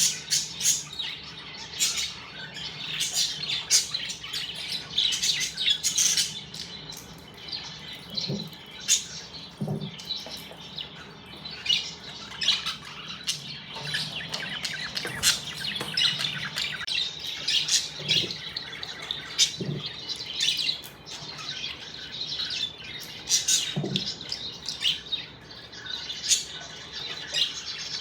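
Budgerigars chattering with a continuous stream of short chirps, warbles and squawks, with a few brief dull low sounds in between.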